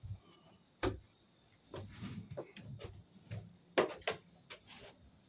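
A person getting up from kneeling and moving about on a wooden deck: rustling and soft steps, with a sharp knock about a second in and two more in quick succession near four seconds.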